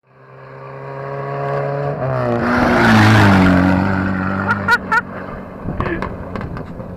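1960 Singer Gazelle's four-cylinder engine running steadily as the car drives past close by on a dirt track. The engine note drops in pitch about two seconds in, with a loud rush of tyre and gravel noise, then fades as the car pulls away. Two short squeaks come about halfway through, followed by scattered light clicks.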